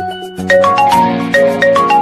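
Phone ringtone melody in a marimba-like mallet sound: quick runs of bright, short notes, dropping out briefly and starting a new phrase about half a second in.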